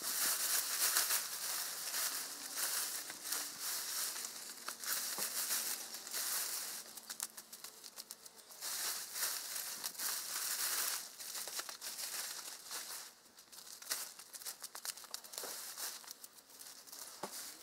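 Tent rainfly fabric on a Coleman Tough Dome 2725 rustling and crinkling as it is dragged and pulled over the dome's frame. It comes in irregular bursts that are busiest in the first half and thin out to scattered rustles near the end.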